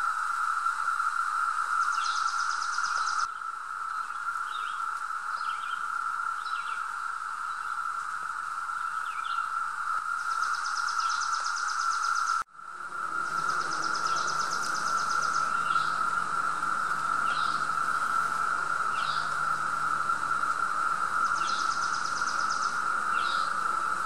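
Chorus of periodical 17-year cicadas: a steady, unbroken drone, with birds chirping over it and a short, high, pulsed trill four times. The sound drops out for an instant about halfway through.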